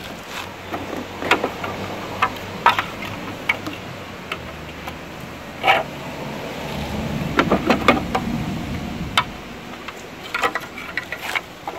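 Irregular clicks and knocks of hard plastic parts as a bus A/C blower motor housing is handled and its plastic cover lifted off.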